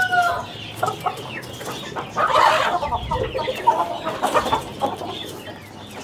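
Aseel roosters clucking in short, scattered calls as they feed on grain, with the falling tail of a rooster's crow ending about half a second in.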